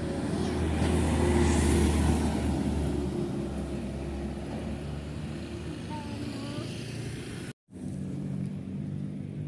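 A heavy road vehicle, a bus or truck, drives past with a low engine rumble that swells and then fades; no horn sounds. After a brief cut about eight seconds in, a steadier engine hum follows.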